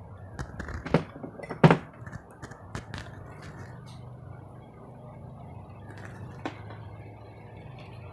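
Handling noise of multimeter test leads and probes being picked up and moved about on a work table: several sharp clicks and knocks, most in the first three seconds and one more later, over a steady low hum.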